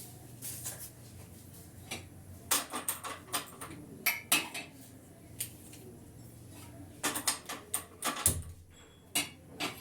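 Kitchen utensils clinking and clattering as metal things are handled and set down, in scattered knocks with a thick cluster of quick clicks about seven to eight seconds in, over a low steady hum.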